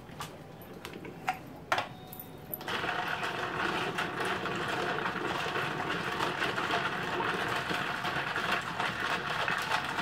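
A few clicks from the plastic lid of an iced coffee tumbler, then from about three seconds in a steady rapid rattle as the iced coffee is stirred, the last pieces of ice knocking inside the plastic tumbler.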